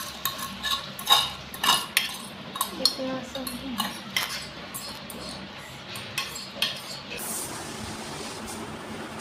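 A spoon scraping and knocking against a non-stick pot and a steel plate as cooked instant noodles are served out, a run of irregular clinks and scrapes. The clatter stops about seven seconds in, leaving a steady hiss.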